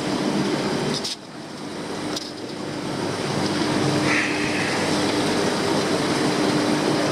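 Steady rushing noise with a constant low hum from aquarium fish-room equipment, such as pumps, filtration and air handling. It dips briefly about a second in.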